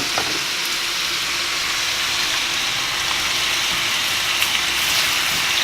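Onions, carrots and green beans sizzling steadily in olive oil in a frying pan, with a faint steady hum underneath.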